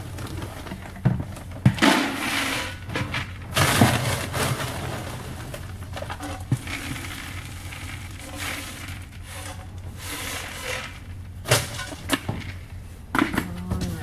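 Pelleted horse feed scooped out of a plastic bin and poured into a plastic bucket, the pellets rattling and hissing as they pour. A few sharp plastic knocks near the end as the bin lid is handled.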